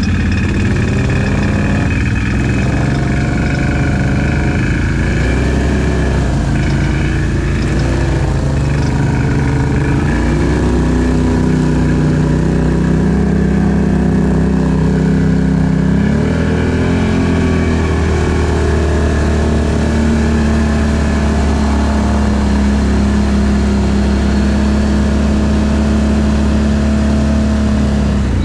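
ATV engine running under way, its pitch rising and falling with the throttle for the first ten seconds or so, then holding a steady pitch at cruising speed.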